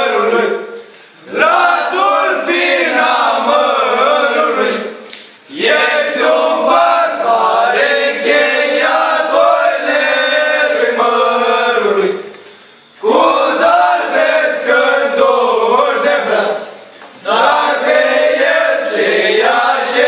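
Group of young men singing an old Romanian antiphonal Christmas carol (colindă) unaccompanied, in long sung phrases broken by short pauses.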